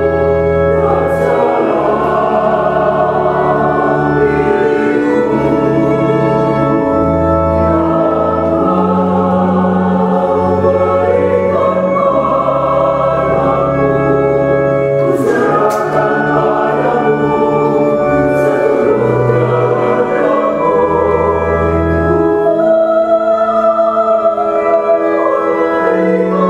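Mixed choir singing a hymn in parts, accompanied by an organ holding long low bass notes. A violin plays along, coming forward near the end.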